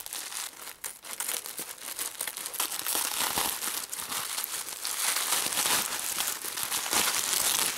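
Plastic bubble wrap crinkling and crackling continuously in a dense run of small crackles as hands pull it apart and cut it open with scissors.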